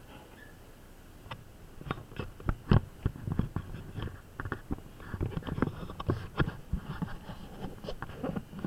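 Irregular knocks, taps and scrapes on a muffled action camera's housing as the camera is moved about on its mount, with a faint low rumble underneath.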